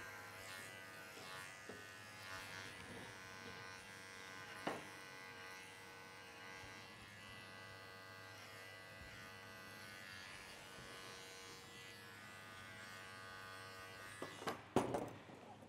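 Electric dog-grooming clipper running with a faint, steady buzz while clipping a Shih Tzu's head. It stops about fourteen seconds in, and a few short knocks follow near the end.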